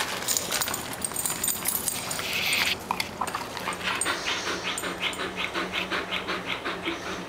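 Bull Terrier panting rapidly with its mouth open, about three breaths a second, after a few seconds of knocking and scraping as it mouths and paws a toy on a tiled floor.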